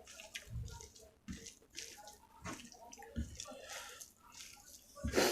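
Close-up wet chewing and mouth sounds of someone eating rice with chicken and gravy: irregular squelching smacks and clicks, with one louder smack near the end.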